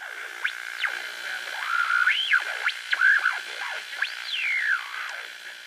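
Electronic synthesizer outro sting: a steady held tone with quick pitch sweeps up and down over it, a longer rise about two seconds in and a long falling glide about four seconds in, fading near the end.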